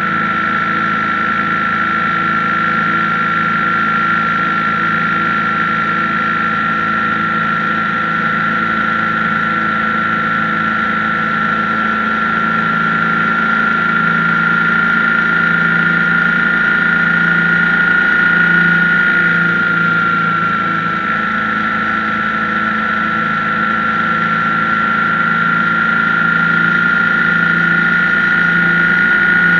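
BMW R1150GS's boxer twin engine running loudly and steadily, with a strong high whine on top that dips slightly in pitch about two-thirds of the way through.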